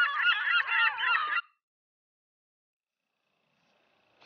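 A flock of birds calling together, many short honking calls overlapping, which cut off suddenly about a second and a half in.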